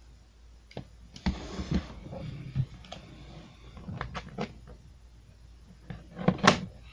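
Handling noise: a scatter of sharp clicks and knocks with a short rustle about a second in, and the loudest knocks near the end.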